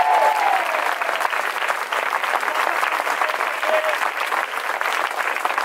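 A large crowd applauding with steady hand-clapping, a cheer trailing off just at the start.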